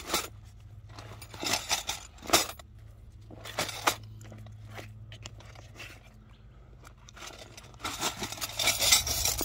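Canvas drawstring bag being handled and opened, with rustling and scattered scrapes; from about eight seconds in, heavy metal tent stakes inside it start to clink and rattle as the bag is opened up.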